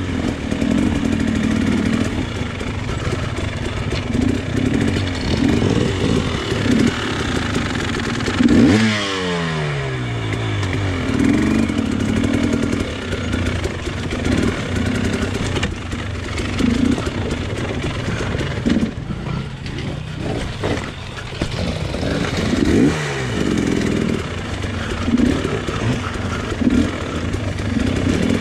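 Enduro dirt bike engine running at low trail speed, the throttle blipped up and down again and again. About nine seconds in the revs jump and then fall away over a second or two, with another rise and fall later on.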